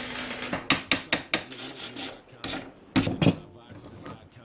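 MIG wire-feed welder arc sputtering and crackling in short, uneven bursts as the beginner tries to lay a weld, with a louder spurt about three seconds in. The sound is irregular and choppy, not a smooth steady buzz.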